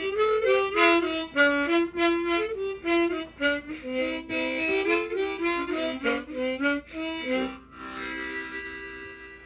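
Old mouth organ (harmonica) playing a lively dance tune in quick notes and chords. Near the end it settles on a softer held chord that fades away.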